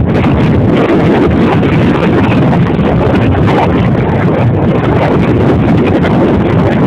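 Loud, steady wind rushing over the microphone of a vehicle travelling at high speed, with road and engine noise mixed in.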